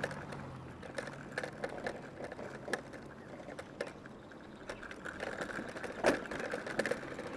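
Electric moped ridden along a rough patched road: irregular light clicks and rattles over a faint steady whine, with one sharper knock about six seconds in.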